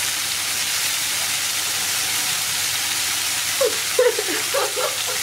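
Marinated meat pieces sizzling in hot oil in a frying pan, a steady hiss.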